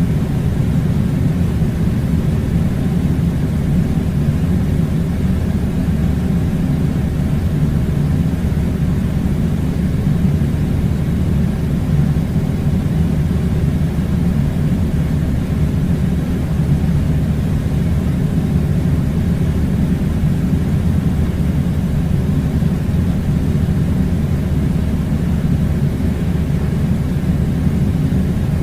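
Air conditioner blowing: a steady, unchanging low rumble of rushing air.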